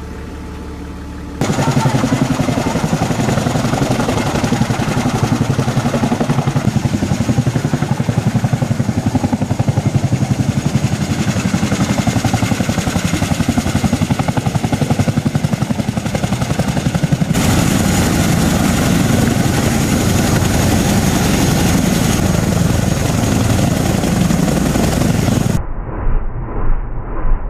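CH-47JA Chinook tandem-rotor helicopter running on the ground with both rotors turning: a loud, dense rotor beat with a faint high steady tone over it. The sound jumps abruptly in level and character about a second and a half in and again later, and near the end it becomes a slower, pulsing beat.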